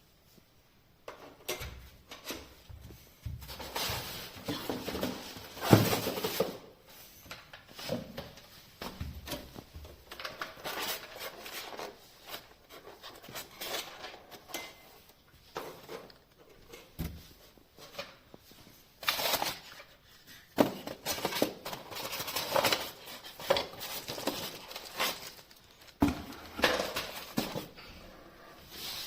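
Irregular handling noises: rustling with light clatter and clicks of objects being moved about, and a sharp knock about six seconds in.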